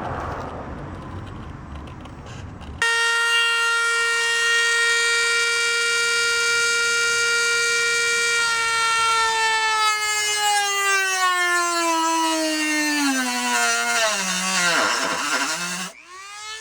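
A high-speed rotary tool whining as it cuts into the car's sheet-metal fender. The motor starts abruptly about three seconds in with a steady high whine, then its pitch sinks and wavers as it bogs down under the cutting load. Near the end it cuts out and spins straight back up to full speed.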